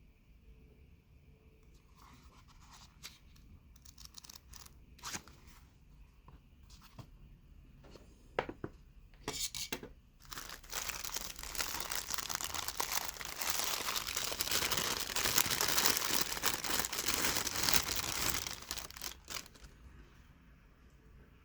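Packaging wrapping being handled and torn open: scattered light clicks and rustles at first, then from about ten seconds in a long spell of continuous tearing and crinkling that stops shortly before the end.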